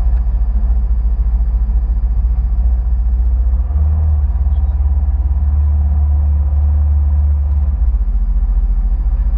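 Jet ski engine running at low speed: a steady low rumble that grows stronger for a few seconds in the middle, then settles back.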